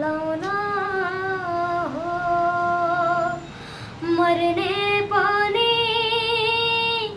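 A boy sings a Nepali song unaccompanied in a high voice, holding long notes that waver near the end, with a short breath break about three and a half seconds in.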